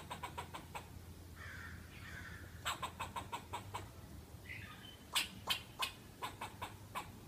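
Fox squirrel giving its barking alarm chatter: three runs of sharp, clipped chucks, several a second, with a softer drawn-out rasp twice between the runs.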